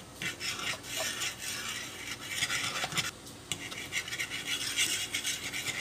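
A metal fork stirring and scraping beaten eggs around a nonstick frying pan, with many quick clicks of the tines against the pan.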